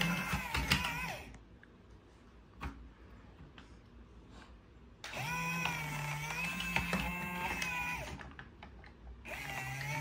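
Small electric gear motors of a Cheetah toy remote-control excavator whining as the arm works: a brief run at the start, a steady run of about three seconds from roughly five seconds in, and another starting near the end, with a quiet gap and a light click between.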